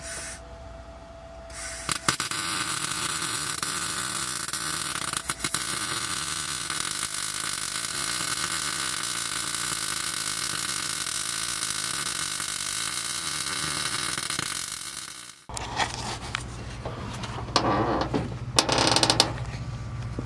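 Arc welding a metal gas-pedal bracket to a spacer: the arc runs as a steady crackling hiss for about thirteen seconds, starting about two seconds in and cutting off suddenly. A few shorter, uneven bursts follow near the end.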